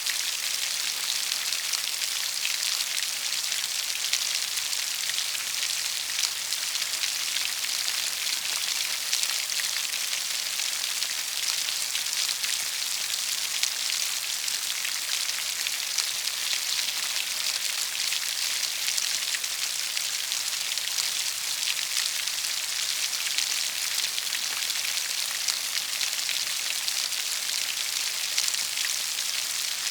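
Steady rain falling: a dense, even hiss of many small drops that neither builds nor eases.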